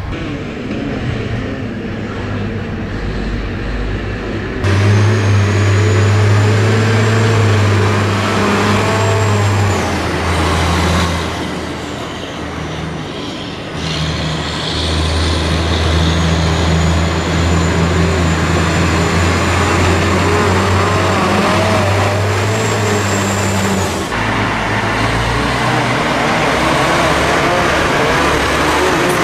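Heavy diesel truck engines running as the trucks move over a gravel quarry road: a deep steady engine note, with a thin high whine in two stretches. The sound changes abruptly several times.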